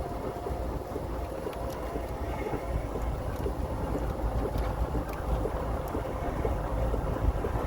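Vehicle driving: a steady low rumble of engine and road noise, with a few light clicks.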